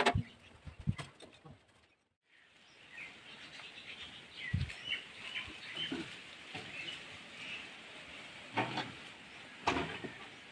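Small birds chirping in the background, short high calls repeated over several seconds, with a few sharp knocks and clicks near the end.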